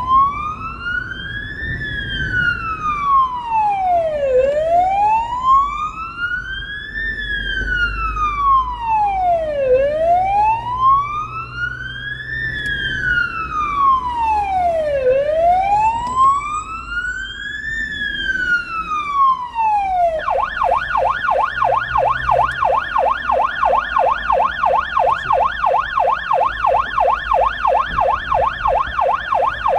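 Electronic siren of a blood-transport car on an urgent run. It wails slowly up and down, about five seconds per cycle, then about two-thirds through switches to a fast yelp, with engine and road noise underneath.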